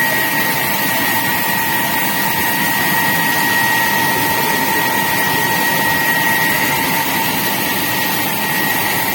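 Rice milling machinery running steadily, a loud even mechanical noise with a constant high whine.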